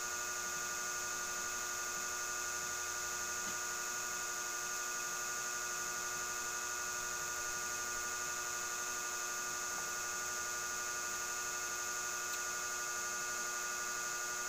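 An electric fan running with a steady, unchanging hum made up of many even tones.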